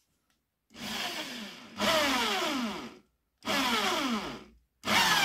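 Electric hand drill with a small bit running in three short spells as it bores a shallow countersink into the wall of a copper tube held in a vise. Its pitch falls within each spell.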